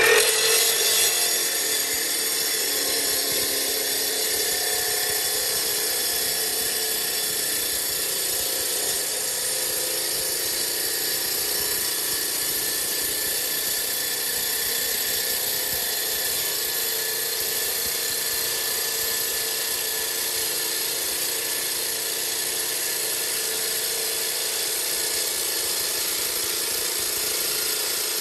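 Solwet portable electric slab cutter's diamond blade cutting through a granite slab: a steady motor whine with the blade grinding the stone, a little louder in the first second as it bites in.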